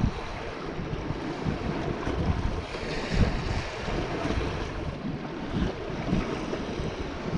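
Wind buffeting the microphone over choppy lake water lapping against a boat's hull, a gusty rumbling noise.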